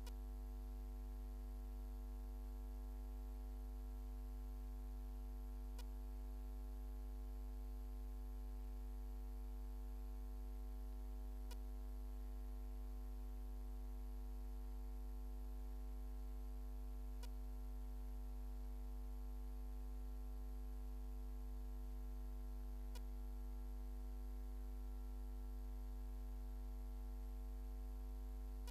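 Steady electrical mains hum at 50 Hz with a ladder of higher overtones, from the open microphone and sound system with nobody speaking. A faint click sounds about every six seconds, four times in all.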